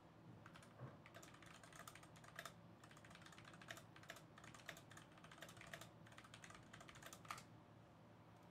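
Faint typing on a computer keyboard: quick runs of key clicks, stopping near the end.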